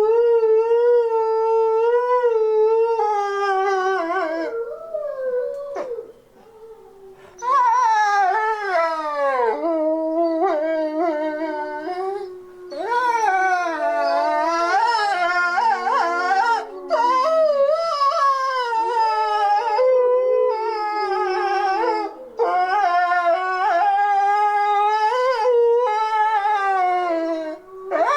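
A pack of wolves howling together in chorus: several long, overlapping howls that glide up and down in pitch, with a brief lull about six seconds in.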